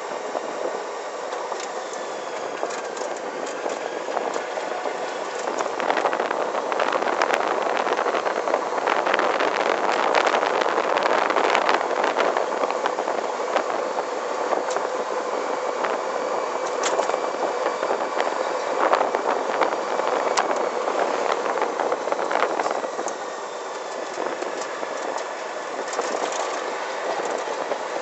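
Open electric buggy, a Hammerhead 150 go-kart converted to electric drive with a quiet belt drive, driving on concrete streets: steady tyre, road and wind noise with a faint steady electric-motor whine and occasional light knocks. The noise swells in the middle as it speeds up, then eases back.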